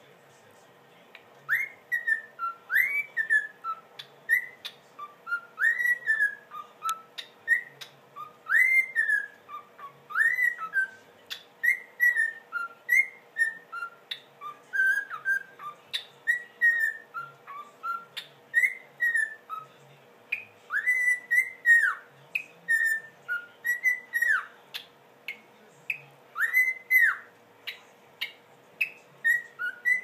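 Cockatiel whistling a long, lively run of clear notes that glide up and down in short phrases, starting about a second and a half in.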